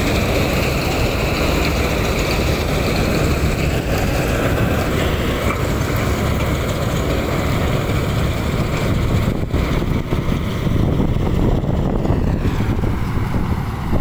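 Swaraj combine harvester running while it cuts standing wheat: a loud, steady drone of the engine and harvesting machinery, heard close up.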